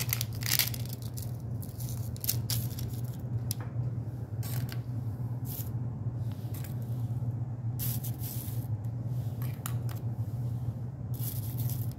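Dry meringue cookies being picked off parchment paper and set into a glass dish: a string of light clicks and taps, with some rustling of the parchment, over a steady low hum.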